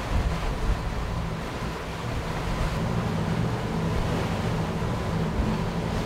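Lagoon 420 catamaran under engine power, its motor giving a steady low hum, with wind on the microphone and water washing along the hulls.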